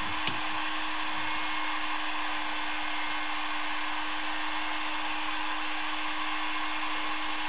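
Heat gun running: a steady blower hiss with a constant hum from its fan motor. A light click comes just after the start.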